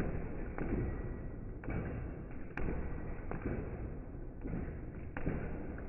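Leather speed bag being punched hard and fast, thudding in a rapid, uneven rattle against its overhead rebound platform, with sharper slaps now and then.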